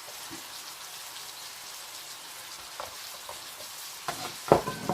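Beef sizzling steadily in a pot in its teriyaki and soy juice, then a few sharp, loud knocks near the end.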